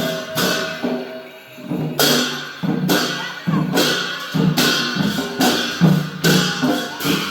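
Traditional Newar festival percussion: a drum pattern with ringing cymbal clashes about every second, loud and continuous.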